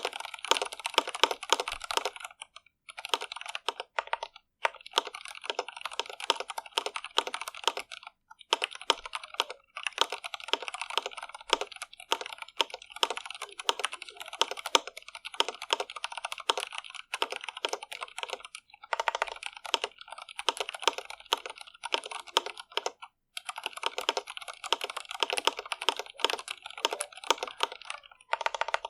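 Steady typing on an Iqunix L80 mechanical keyboard with stock Cherry MX Red linear switches: fast runs of keystrokes broken by a few short pauses.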